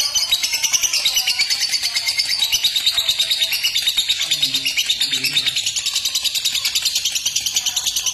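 Fischer's lovebird chattering in a long, unbroken run of rapid, high chirps: the continuous trill that keepers call ngekek.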